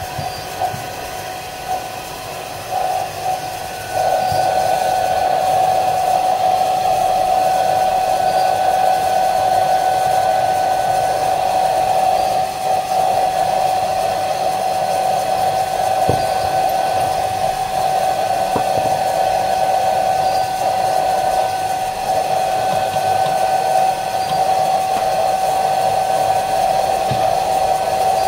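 Hair dryer blowing steadily, a steady whine over the rush of air, growing louder about four seconds in. It is heating a phone's glass back cover to soften the double-sided tape beneath it.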